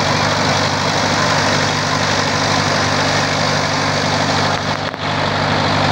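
A steady, loud mechanical drone like an engine running, with a low hum under it. It drops out briefly about five seconds in.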